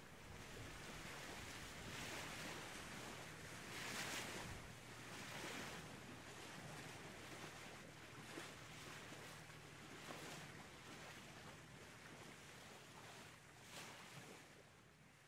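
Faint sea surf: waves washing in and drawing back, swelling every few seconds, the strongest about four seconds in, then fading out near the end.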